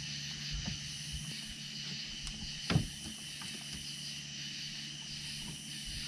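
Steady high-pitched hiss over a low, even hum, with a single short knock a little before the middle.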